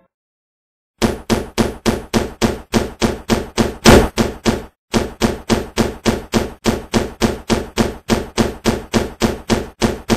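Rapid, evenly spaced knocks, about three a second, each ringing briefly, with a short break about four and a half seconds in.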